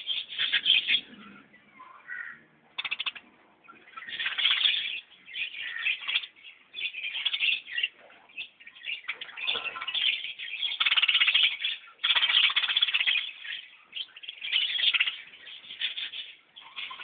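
Birds calling in a long run of short, chattering bursts with brief pauses between them.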